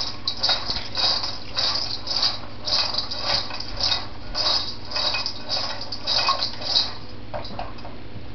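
Popped popcorn being shaken in a stainless steel mixing bowl, rustling and rattling against the metal in a steady rhythm of about two shakes a second, tossing it to spread the salt and butter. The shaking stops near the end.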